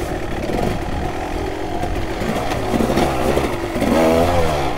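Kawasaki KX250 dirt bike engine running under throttle on a rocky descent, blipped up and down. Its pitch rises and falls several times in the second half.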